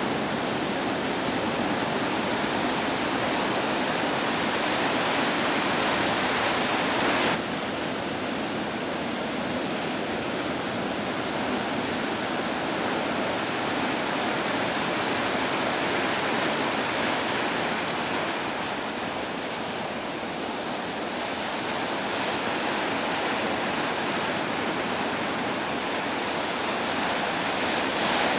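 Steady rush of ocean surf and whitewater. It drops abruptly in level about seven seconds in and jumps back up near the end.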